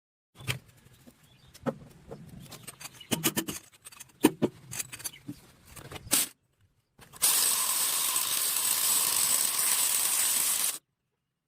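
Metal clinks and knocks of hand tools at work, a quick irregular string of them, then a loud steady hiss lasting several seconds that cuts off abruptly.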